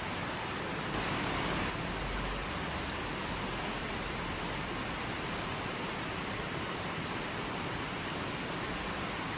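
A steady, even hiss spread across all pitches, with no separate splashes standing out, and a slight brightening about a second in.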